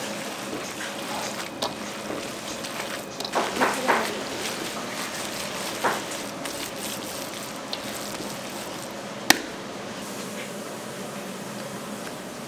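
Kitchen food-preparation sounds over a steady background hiss with a faint hum: scattered light knocks, a short burst of clattering about three and a half seconds in, another about six seconds in, and one sharp click about nine seconds in.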